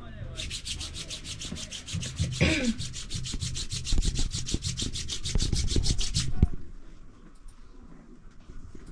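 Rapid, even rubbing strokes, about seven a second, with dull low thumps among them, lasting about six seconds and then stopping abruptly.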